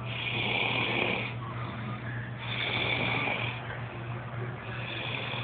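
A woman asleep drunk, snoring heavily in a slow rhythm: three long snores, about one every two and a half seconds.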